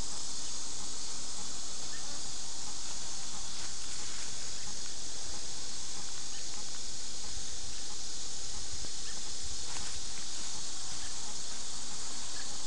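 Steady high-pitched hiss at an even level.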